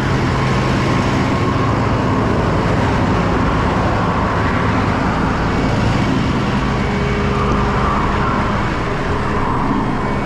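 A vehicle engine running steadily under heavy road and traffic noise.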